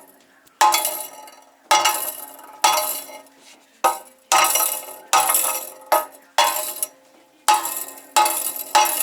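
Metal struck about once a second, eleven sharp knocks, each ringing briefly before fading. The exhaust pipework is being checked for a rattle, with something loose suspected inside the pipes.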